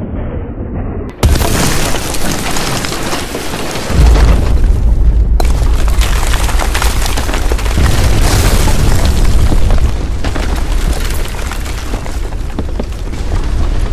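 Cinematic logo-intro sound effects. A muffled, sweeping music passage is cut off by a sudden heavy impact about a second in, followed by dense crashing noise. A deep booming rumble comes in about four seconds in and eases off near ten seconds.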